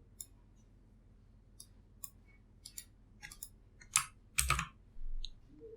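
Scattered keystrokes and clicks on a computer keyboard, a few at a time with gaps between, the loudest cluster about four seconds in.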